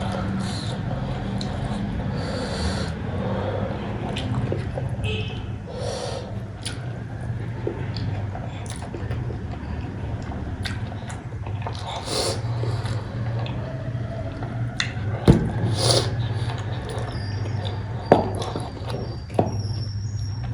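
Wet chewing and smacking mouth sounds of someone eating cooked goat head, with scattered short clicks and two sharper clicks. A steady low hum runs underneath.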